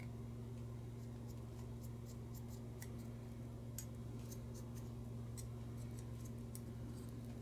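Small irregular clicks and scrapes of tweezers holding a wad of cotton, working in the crevices of a lighter to clean it, over a steady low hum.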